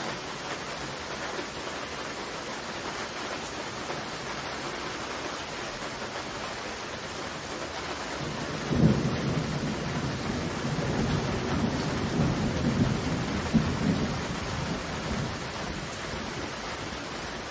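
Steady heavy rain, with a thunderclap a little past halfway: a sudden crack, then several seconds of rolling rumble that fades back into the rain.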